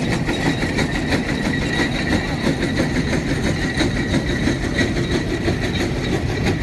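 Case 150 HP steam traction engine pulling a 24-bottom plow under load, its exhaust beating steadily in a rapid even rhythm over a heavy rumble, with a thin steady high tone above.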